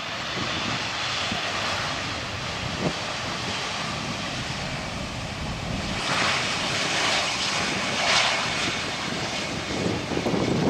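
Airbus A321-231 jet airliner with IAE V2500 turbofans rolling along the runway on its landing roll, ground spoilers raised, its engine noise swelling and brightening about six seconds in as it passes. A heavier low rumble builds near the end.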